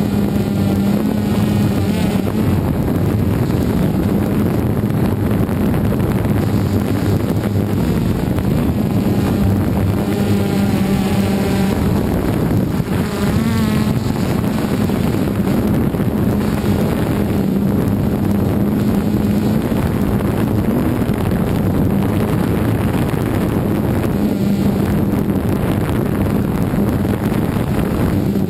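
DJI Phantom 2 quadcopter's four motors and propellers buzzing steadily, heard up close from the GoPro mounted on the drone. Around the middle the pitch wavers up and down as the motors change speed.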